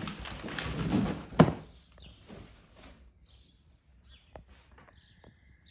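Cardboard scraping and rustling as a boxed coffee machine is pulled up out of a shipping carton, with one sharp knock about a second and a half in; after that it goes much quieter, with a few faint clicks.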